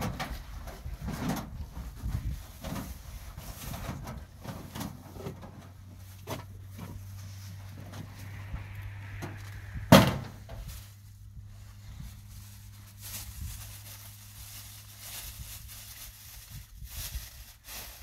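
Scattered knocks and handling clatter over a low steady hum, with one sharp loud bang about ten seconds in.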